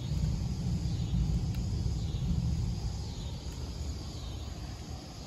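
Outdoor ambience: a steady low rumble, with faint insects chirping above it in pulses that swell and fade about once a second.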